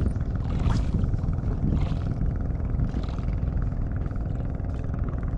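A small boat's engine running steadily, a continuous low drone.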